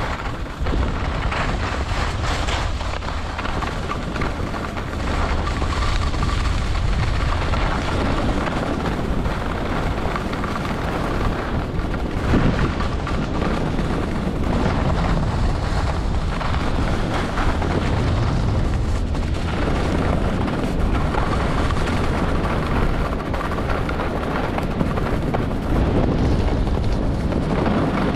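Wind buffeting the camera's microphone during a fast downhill ski run: a steady low rumble with a rushing hiss, mixed with the scrape of skis over packed snow, swelling and easing every few seconds.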